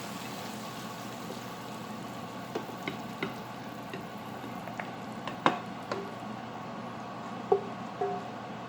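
Chicken in oyster sauce gravy sizzling steadily in a pan, with a few sharp taps of a utensil against the pan. The loudest taps come about five and a half and seven and a half seconds in.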